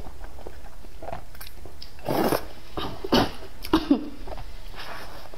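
Wide rice noodles in soup being slurped and chewed, with three short slurps about two, three and four seconds in.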